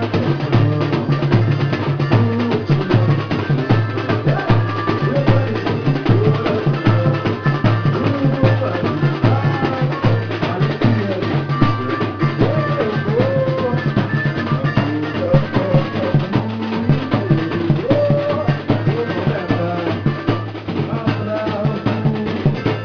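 Drum-led percussion music with a dense, steady beat of drums and a melodic line above it.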